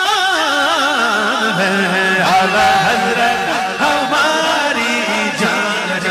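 Islamic devotional chant: a voice singing ornamented, wavering melismatic lines, with a steady low drone held underneath from about a second and a half in.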